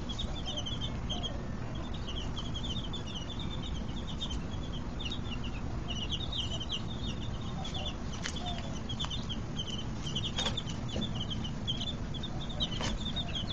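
A brood of baby fowl peeping continuously, many short high peeps overlapping, over a low steady rumble.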